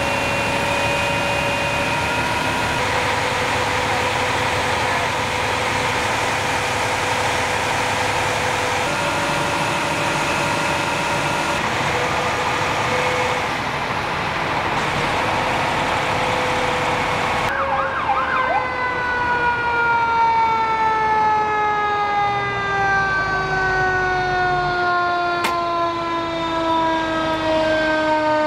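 Fire trucks running steadily with a few held tones over engine noise. Partway through, a fire truck's mechanical siren winds down, its pitch falling slowly and evenly for about ten seconds. A single sharp click sounds near the end.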